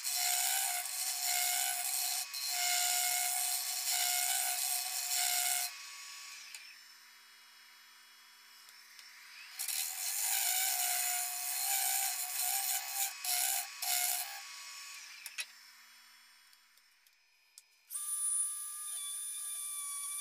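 Hollowing tool cutting the inside of a spalted maple hollow form spinning on a lathe, a dry scraping hiss as shavings are thrown out. It comes in two bouts with a quieter gap between, then dies away about fifteen seconds in.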